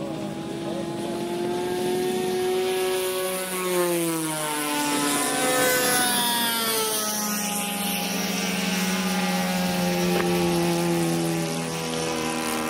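Radio-controlled scale model airplane's engine running at high revs, the propeller whining as the Skyraider A1 model rolls past on the runway. The pitch drops as it goes by, around 4 and 6 seconds in, then holds steady.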